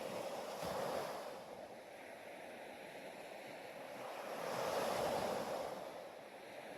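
Ocean waves washing in, a rushing noise that swells and fades twice about four seconds apart.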